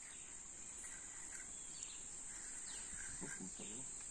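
Steady high-pitched insect drone, with a few faint, short bird calls over it and faint distant voices about three seconds in.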